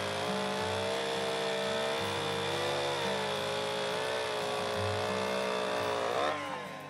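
Two-stroke chainsaw running under load, crosscutting a pine log, its engine pitch wavering with the cut. About six seconds in, the engine revs up sharply and then drops away as the saw comes through the wood.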